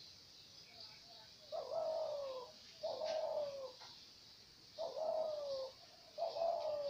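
Dove cooing: four drawn-out coos, each under a second long and falling in pitch, given in two pairs.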